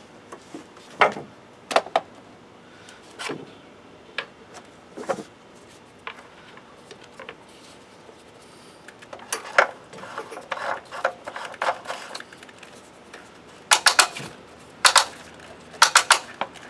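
Irregular clicks, knocks and clatter of parts and tools being handled while the vehicle is closed up after an oil change. Quick clusters of sharp clatters come near the end.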